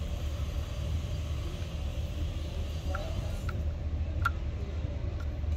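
Steady low rumble, with a few faint clicks in the second half as a screwdriver works the wire terminal screws of an isolator switch.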